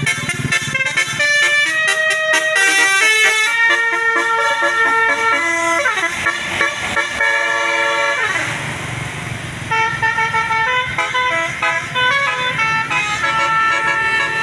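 Bus basuri telolet horn playing a tune: a string of held notes stepping from pitch to pitch, with a sliding passage about six seconds in and a short noisy rush, then the stepped tune starts again.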